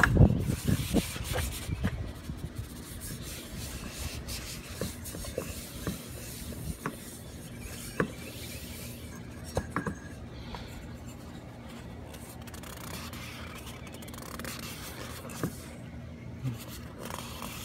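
A paper towel rubbing and wiping around the inside of a funnel to clean it out, with occasional light knocks and clicks as the funnel is handled.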